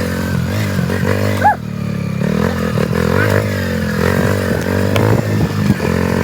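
Yamaha XTZ 125's single-cylinder four-stroke engine running under way, its pitch rising and falling with the throttle. There is a short high squeak about a second and a half in.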